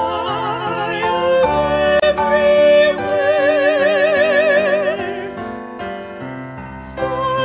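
A hymn sung by a voice with strong vibrato over piano accompaniment. The voice holds a long note in the middle, then drops away near the end, leaving the accompaniment quieter before the singing returns.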